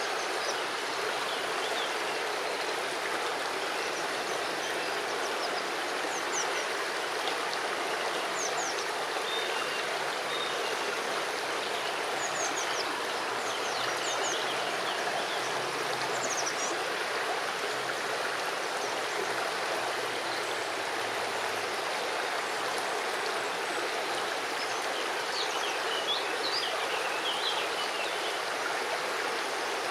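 River water flowing steadily over stones, with scattered short high chirps throughout.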